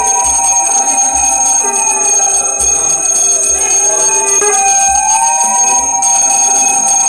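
Small brass puja hand bell ringing continuously, with two long sustained tones over it that each rise and then fall in pitch.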